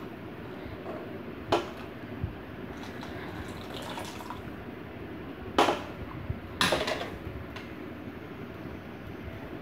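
Water poured in a thin stream into a kadai of coconut-based green peas kurma, with a ladle stirring and knocking against the pan about 1.5 s in and twice more near the middle.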